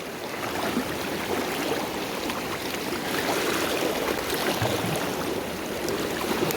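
Fast river current rushing steadily past, a continuous noise of running water.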